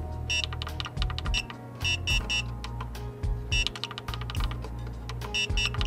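Akasa AllN1 fan controller's alarm beeping: quick runs of about three short, high-pitched beeps, repeating every second and a half or so over a steady low hum. It is the fan-speed alarm, which the owner says goes off because auto mode runs the fans slower than the alarm setting.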